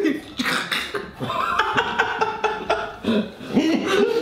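Young men's voices making loud non-word sounds: coughing and laughing.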